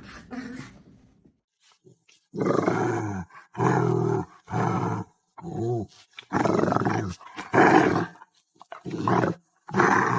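A dog vocalizing in a run of about eight drawn-out, growly howls with short gaps between them, starting about two seconds in.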